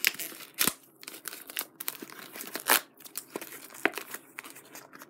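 A toy blind pack's paper packaging being torn open by hand, crinkling and ripping, with a couple of louder rips.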